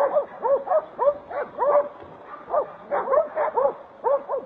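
Hog-hunting dogs barking over and over, several short barks a second, with a brief lull about halfway through.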